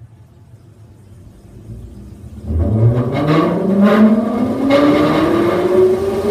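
Electric motor in the cab of a Norwegian Type 68 electric multiple unit starting up about two and a half seconds in: a loud whine that rises steadily in pitch, with a few clicks soon after it starts.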